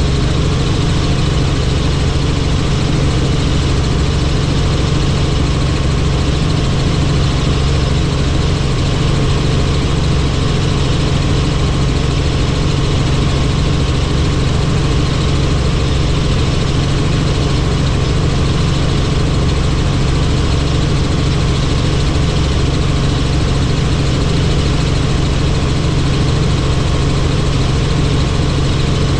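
Helicopter running steadily: a loud, even drone with a strong low hum that does not change.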